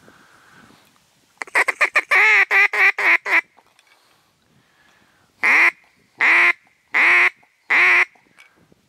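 Loud mallard-type duck quacks: a fast run of about eight quacks, then four slower, evenly spaced quacks.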